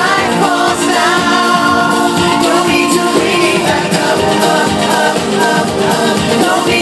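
Live pop music played loud over a concert sound system, with a sung vocal line over the backing.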